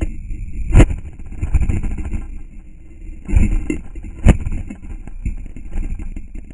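Crashed quadcopter tumbling and coming to rest in dry grass, heard through its onboard camera's mic: a low rumble with a steady high whine, and two sharp knocks as the frame strikes the ground, about a second in and past four seconds.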